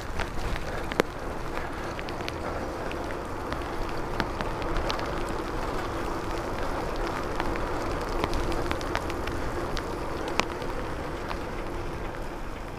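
Bicycle tyres hissing on a rain-soaked road while riding, with wind rumble on the microphone and scattered sharp clicks of raindrops striking the handlebar camera. A faint steady hum runs through the middle.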